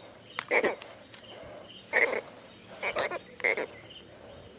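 Insects chirring steadily with a thin high tone, broken by four or five short, sharp sounds spread through.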